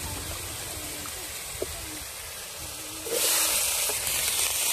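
Spice paste frying in hot mustard oil in a kadai, a low steady sizzle that jumps to a loud hiss about three seconds in as the potatoes go into the hot oil.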